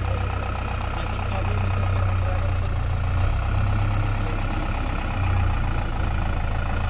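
JCB 3DX backhoe loader's diesel engine running at low speed as the machine drives slowly forward, a steady low rumble.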